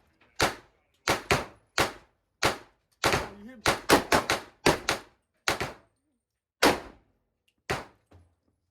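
Gunshots at an indoor range: about fifteen sharp reports in an irregular string, some in quick pairs and clusters around the middle, each with a short echo off the walls.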